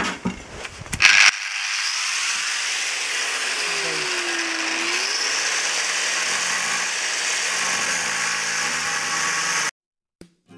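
Angle grinder with a cutting disc cutting steel: a loud, steady whine and hiss whose pitch sags once as the disc bites under load, then recovers. A few clicks and knocks come before it, and it cuts off abruptly near the end, where acoustic guitar music begins.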